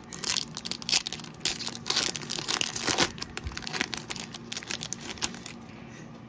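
Foil-lined trading card pack wrapper being torn open and crinkled, a dense run of sharp crackles that thins out after about five seconds.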